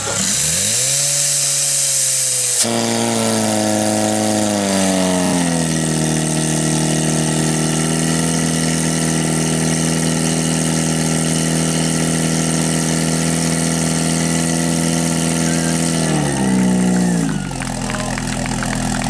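Portable fire pump engine run up to full throttle, rising sharply in pitch at the start. Its pitch sags a little over the next few seconds as it takes the load of pumping water through the hoses, then it runs steady at high revs. About sixteen seconds in it is throttled back and falls to a lower idle.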